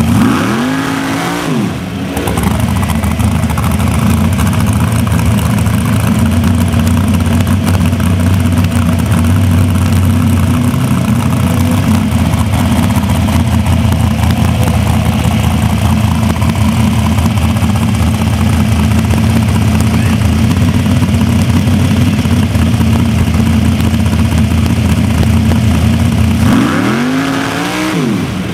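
Dragster engine run hard and held at steady high revs through a long burnout, the engine speed sweeping briefly near the start and again near the end.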